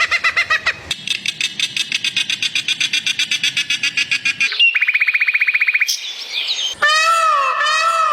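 A run of different animal calls. Fast repeated chirping comes first, then a quick high trill about four and a half seconds in, then from about seven seconds a string of repeated arched calls with rich overtones.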